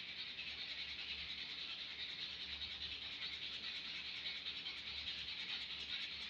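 Sandpaper rubbed by hand along a wooden axe handle in quick, steady strokes, stripping old paint from the wood.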